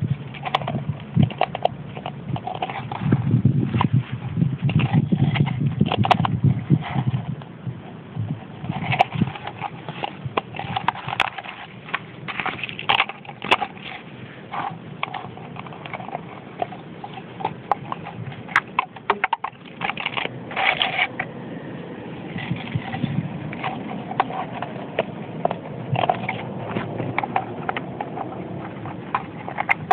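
Empty plastic water bottle crackling and crunching in irregular bursts as a Jack Russell terrier puppy bites, shakes and rolls with it.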